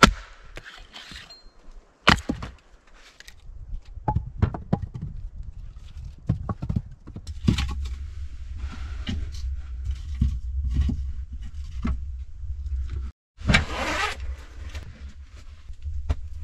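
Split firewood being handled: a sharp wooden knock at the start and another about two seconds in, then a quick run of wooden knocks and clatter, and a loud rustling burst near the end. A steady low rumble runs underneath from a few seconds in.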